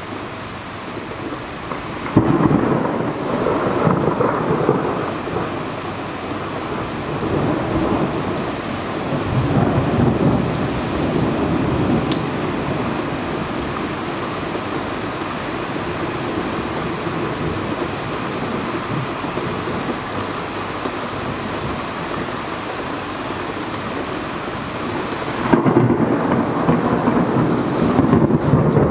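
Thunder over steady rain. A peal breaks suddenly about two seconds in and rolls on in waves for several seconds, and another loud peal starts near the end.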